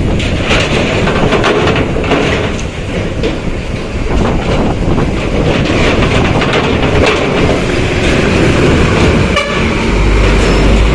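Long-distance coach driving off a ferry, its engine running as the wheels clatter over the steel ramp plates in a string of clanks. Near the end, wind buffets the microphone.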